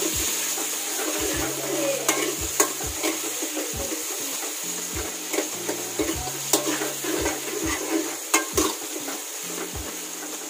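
Metal spoon scraping and clinking against an aluminium kadai while stirring onion-tomato masala with drumstick pieces, the masala sizzling in oil underneath. There are sharp knocks of the spoon on the pan every second or so.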